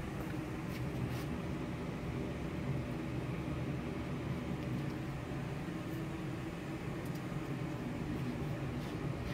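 Steady machine hum with a rushing noise underneath, and a few faint ticks near the start and again near the end.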